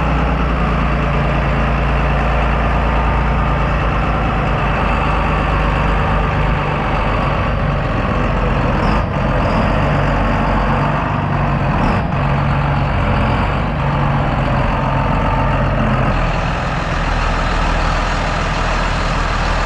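John Deere 8200 tractor's six-cylinder diesel engine running steadily, with two faint clicks about nine and twelve seconds in.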